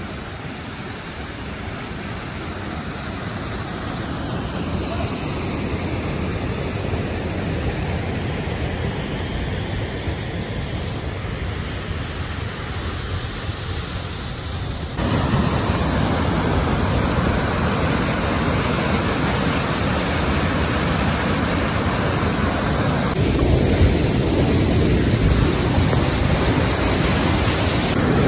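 Steady rush of flowing river water and a small waterfall. About halfway through it cuts abruptly to a louder stretch of the same rushing noise.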